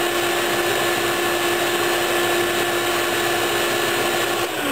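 Small countertop food processor motor running steadily with a fixed hum while it purées hummus. It is switched off near the end and its pitch slides down as it winds down.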